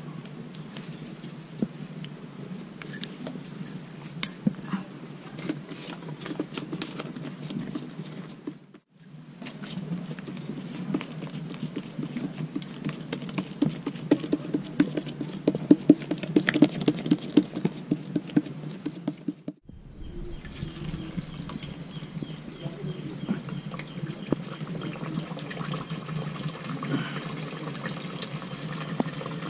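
Vade sizzling and crackling as they deep-fry in hot oil, a dense patter of small pops. It breaks off abruptly twice and resumes.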